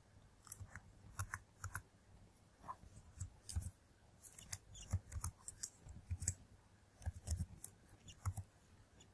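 Computer keyboard keystrokes: short, irregular runs of clicks with brief pauses between them.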